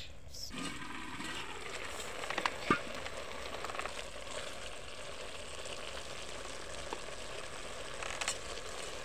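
Pot of pumpkin leaves simmering in milk over a wood fire with a steady hiss, a wooden spoon scraping and knocking against the metal pot as they are stirred. A few sharp knocks stand out, the loudest a little under three seconds in.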